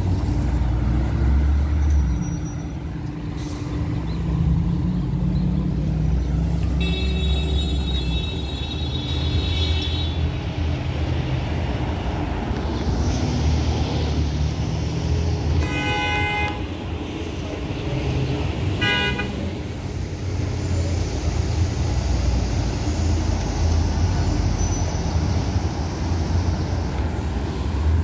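Busy street traffic: engines of passing cars and an express coach bus rumbling steadily. A high-pitched squeal lasts about three seconds a quarter of the way in, and two short car-horn honks come about three seconds apart past the middle.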